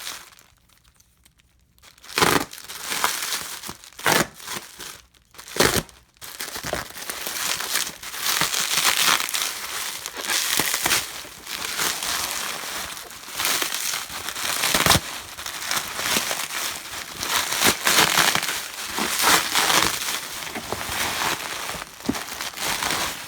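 Packing material crinkling, rustling and tearing as a parcel is unwrapped by hand, full of irregular sharp crackles; it starts about two seconds in.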